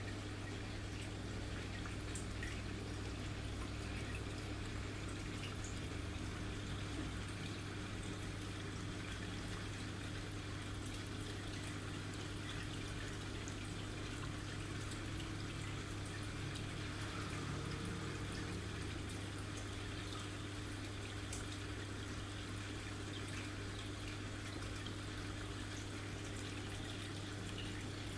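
Aquarium filter pump running: a low steady hum under a steady trickle of water.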